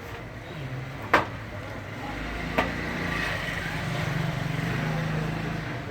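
A motor vehicle's engine running steadily for a few seconds, fading near the end, with a sharp knock about a second in and a weaker one a second and a half later.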